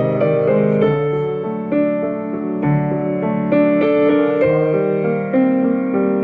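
Piano played slowly: held chords under single melody notes, changing about once a second.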